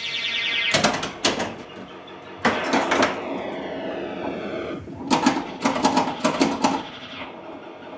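Williams Firepower pinball machine in play: loud clacking strikes from its flippers and solenoid-driven mechanisms, twice about a second in, three times around the middle, and a quick run of them near the end. Between the strikes the machine's electronic sound effects buzz, including a long falling sweep.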